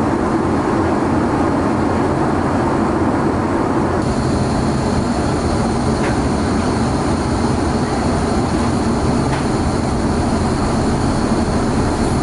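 Steady cabin noise of an Airbus A330-300 in flight: an even, low rush of airflow and engine noise that does not change in level. A thin high whine joins about four seconds in.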